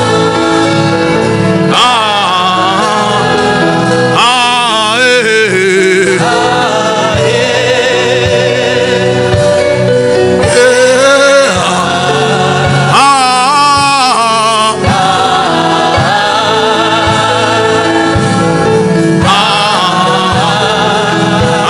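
Gospel music: a vocalist singing with strong vibrato over a steady beat, with choir-like backing voices.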